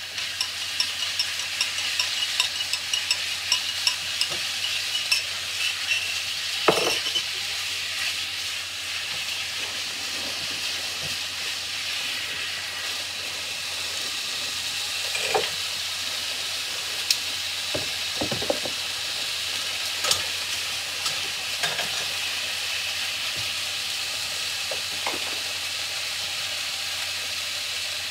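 Chicken breast strips sizzling steadily in a hot frying pan as they are sealed, with a silicone spatula scraping and tapping against the pan over the first several seconds, a sharp knock about seven seconds in, and a few scattered knocks after that.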